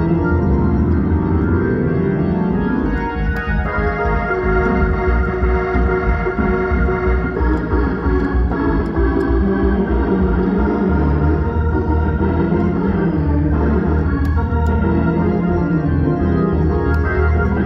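Organ music playing steadily: held chords over a moving bass line.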